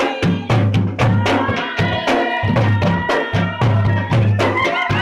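Garhwali dhol, a large two-headed barrel drum, beaten with a stick and the bare hand in a fast, driving dance rhythm. Deep booming strokes alternate with sharp cracks of the stick.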